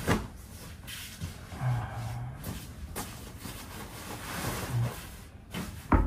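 Bedsheets, blanket and pillows rustling and thumping as people toss and shift on a bed, with a few sharp knocks. Twice in the middle comes a short low snore.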